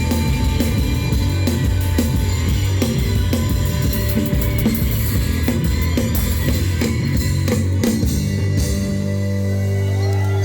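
Rock band playing live, an instrumental stretch with drum kit and guitar over a low bass line. About nine seconds in, the drum hits stop and a low sustained note holds as the song closes.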